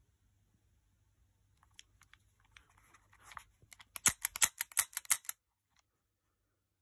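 A fast run of about nine sharp clicks over a little more than a second, from the mechanism of a Smith & Wesson Model 586 .177 CO2 replica revolver being worked by hand. Before the clicks come faint handling ticks and rustles.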